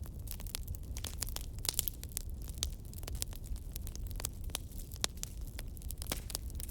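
Fire burning in a fireplace, crackling with frequent irregular sharp pops over a steady low rumble.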